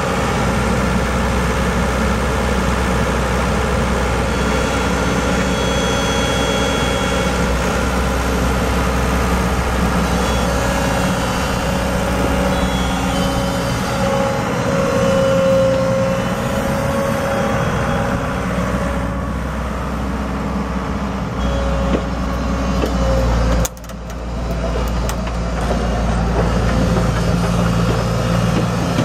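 Komatsu PC100 hydraulic excavator's diesel engine running under load as the machine works its boom and bucket and moves on its tracks, with a steady whine over the engine note that strengthens and fades. The level drops suddenly for a moment about three-quarters of the way through.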